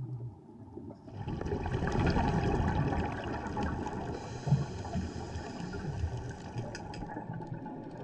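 Underwater noise heard through a dive camera's housing, most likely a scuba diver's exhaled bubbles rushing up past the camera. It swells about a second in and then slowly fades.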